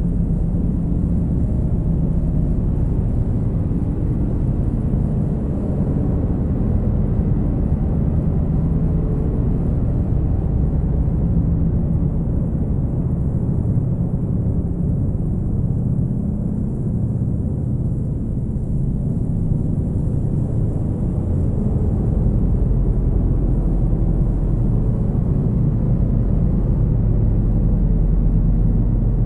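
Dark ambient drone music: a dense, steady low rumble of layered guitar, synth and electronic drones with held low tones, and a deep bass swelling up about two-thirds of the way through.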